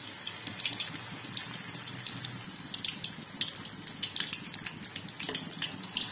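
Hot oil sizzling and crackling as a single small test piece of marinated chicken 65 deep-fries in a kadai.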